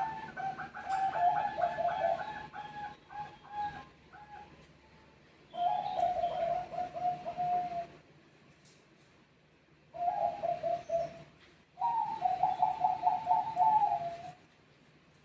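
Zebra doves cooing back and forth: four bouts of quick, pulsed cooing phrases, the first about four seconds long, then shorter phrases about six, ten and twelve seconds in.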